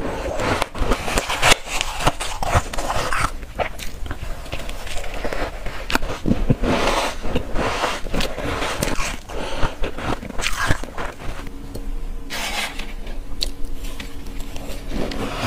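Close-up crunching and chewing of soft powdery ice, bite after bite in a quick irregular rhythm.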